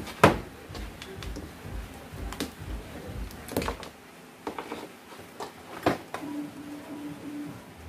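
Audio cables and their plugs being handled and pulled out on a workbench: scattered clicks and knocks of connectors and leads against the table, the sharpest about a quarter second in.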